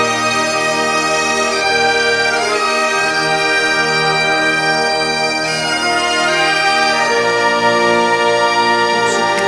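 Bagpipe music: a slow melody of long held notes over a steady drone.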